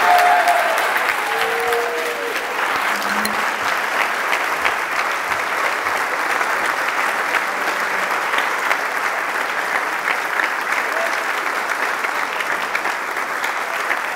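An audience applauding steadily. A few voices cheer over the clapping in the first two seconds, where it is loudest.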